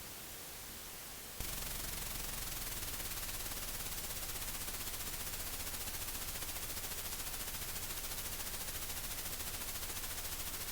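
Idle-channel noise from a PreSonus Revelator IO 24 USB-C audio interface's headphone output, recorded straight off the jack with nothing playing back. It is a faint hiss that about a second and a half in steps up into a rapid, even ticking over hiss. This is the unwanted noise the interface puts out when no audio is being played.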